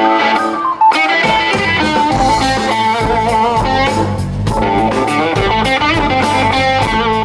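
A live blues band playing: electric guitar lines alone at first, then bass guitar and drums come in about a second in and the full band plays on.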